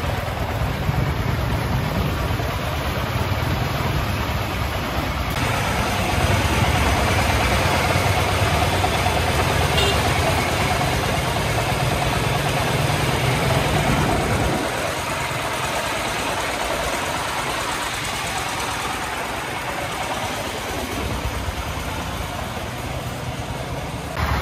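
Single-cylinder diesel engine of a loaded công nông three-wheeled farm truck running steadily as it drives, with road and wind noise. Its low throb drops away sharply about two-thirds of the way through.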